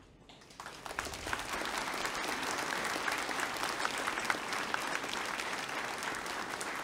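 An audience applauding: many people clapping, building up over the first second and then holding steady.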